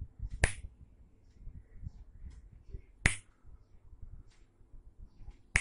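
Three sharp finger snaps, about two and a half seconds apart, used to trigger a sound-activated relay switch circuit.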